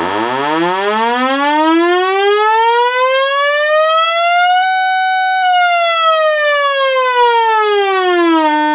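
Sawtooth test tone from a signal generator, played through a Velleman K8060 discrete power amplifier into a bare woofer. The buzzy tone sweeps up from a low hum to a high note over about four and a half seconds, holds briefly, then slides back down and settles on a steady lower pitch near the end.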